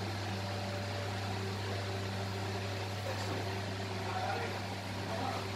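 Steady low electrical hum with a few fainter higher tones over a soft, even hiss, unchanging and without any sudden sounds.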